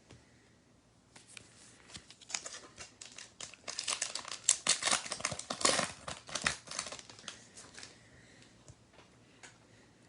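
A foil trading-card pack wrapper crinkling as it is torn open, loudest in the middle few seconds and trailing off into a few light rustles near the end.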